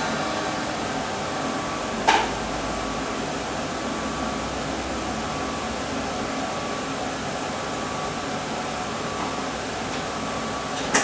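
Steady air hiss and mechanical hum of a Gavioli-system street organ's wind supply running between tunes, with a single sharp click about two seconds in.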